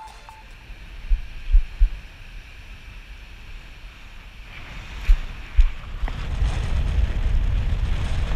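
Wind buffeting an action camera's microphone in gusts, with several sharp low thumps, over a faint wash of shallow water. The wind noise grows louder and steadier about two-thirds of the way through.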